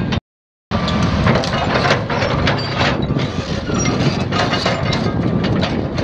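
Large excavator's Volvo D12C six-cylinder diesel running steadily, with repeated knocks and clanks of heavy steel parts. The sound drops out for about half a second just after the start.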